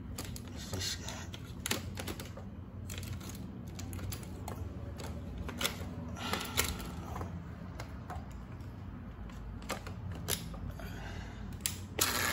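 O gauge model train running on three-rail track: a steady low hum with many irregular light clicks and ticks.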